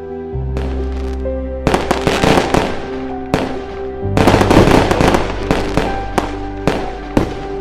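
Background music with held synth chords and a bass line, overlaid with loud, dense crackling bursts, the first about two seconds in and a bigger one about four seconds in.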